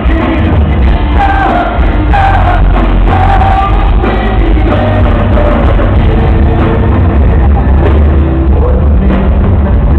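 Live heavy rock played on amplified cellos and a drum kit, with a male lead voice singing, recorded from the crowd through the hall's PA.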